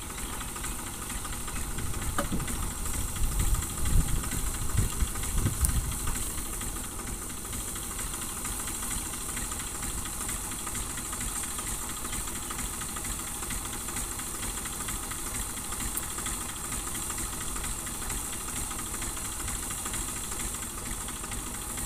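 TAFE 45 DI tractor's diesel engine idling steadily under a steady hiss. The low rumble swells irregularly for a few seconds between about two and six seconds in, then settles back to an even idle.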